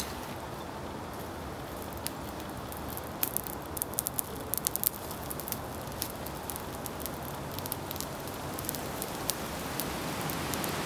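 Charcoal forge fire crackling and popping over a steady hiss, the pops thickest a few seconds in. Near the end a red-hot steel blade goes into a pan of quench oil, and the hiss swells into a sizzle.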